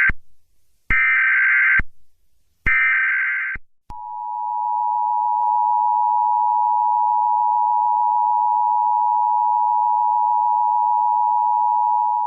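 Emergency Alert System weekly test: the end of one burst of the buzzy digital SAME header tones, then two more bursts, each just under a second long. About four seconds in, the two-tone EAS attention signal starts, a steady harsh dual tone held for about eight seconds before cutting off abruptly.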